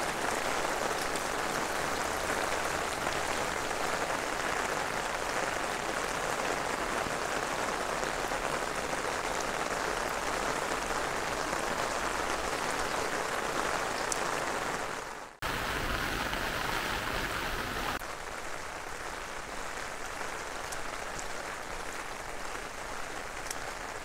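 Steady rain falling on wet ground and stone walls, a constant even hiss. It drops out for an instant about fifteen seconds in and is a little quieter after that.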